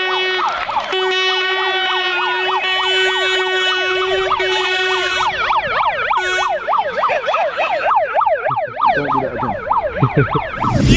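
Handheld megaphone's built-in siren sounding loudly: a steady held tone for about the first five seconds, then a fast wailing siren that rises and falls several times a second.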